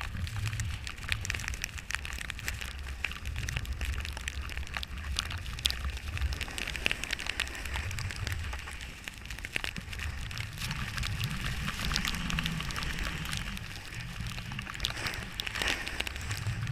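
Wind buffeting the microphone of a GoPro action camera, a low rumble that swells and eases, over a steady crackling hiss of snow.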